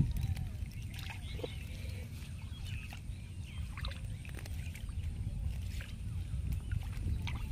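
Shallow floodwater sloshing and trickling faintly as a monofilament current net full of small fish is handled at the water's edge, with a few light clicks, over a low steady rumble.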